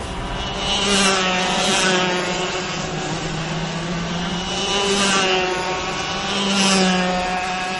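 Two-stroke racing kart engines passing at speed, one after another. The high engine note rises and falls as each kart goes by, loudest about a second, two, five and nearly seven seconds in.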